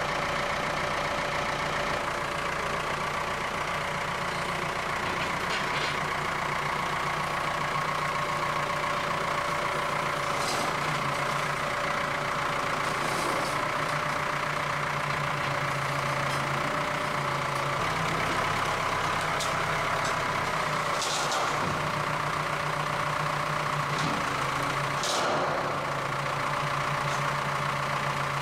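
Ford farm tractor's diesel engine running steadily at low revs while its front loader works, the engine note dropping deeper for a few seconds about two-thirds of the way through. A few brief, sharp higher-pitched sounds cut in over the engine.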